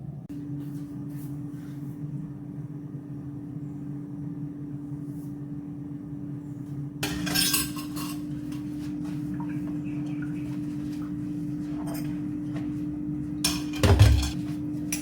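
Dishes and kitchen utensils clinking and clattering in two bursts, about seven seconds in and near the end, the second with a heavy thump. A steady low hum runs underneath from just after the start.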